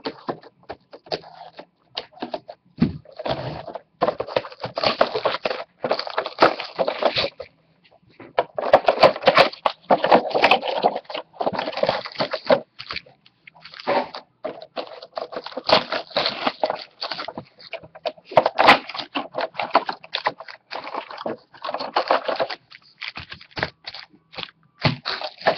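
Clear cellophane shrink wrap being torn off and crumpled from trading card boxes: loud, irregular crinkling and rustling in dense bursts, with short pauses between them.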